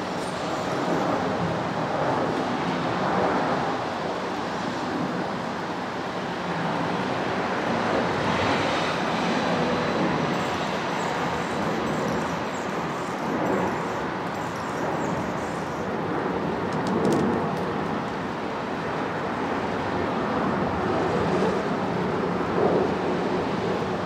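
Steady rushing outdoor background noise that swells and eases gently every few seconds.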